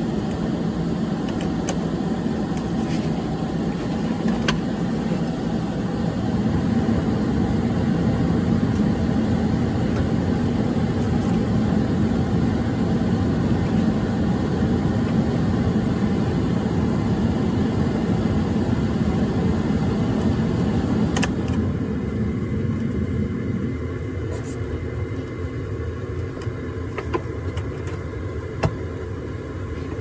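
Bryant gas furnace running as it restarts. The draft inducer motor spins up a few seconds in and runs steadily over the blower noise. About twenty seconds in, part of the running noise drops away, leaving a quieter hum with a few faint clicks.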